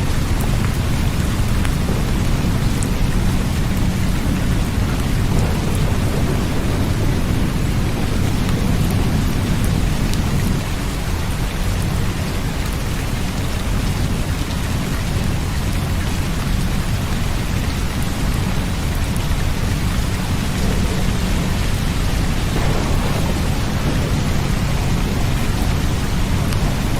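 Steady heavy rain with a constant low rumble of thunder underneath.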